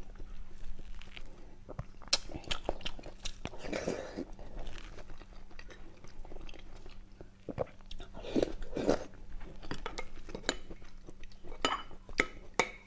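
Close-miked chewing and wet mouth sounds of someone eating a mouthful of rice and stewed meat in broth, with many small clicks. Near the end a plastic spoon clinks and scrapes against a porcelain bowl a few times.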